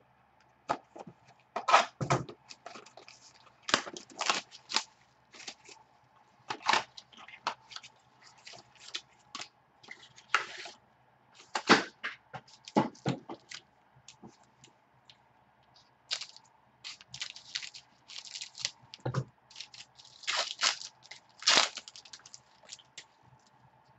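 Foil trading-card pack wrappers crinkling and tearing as packs are opened and the cards handled: a long run of sharp, irregular crackles and rustles, over a faint steady hum.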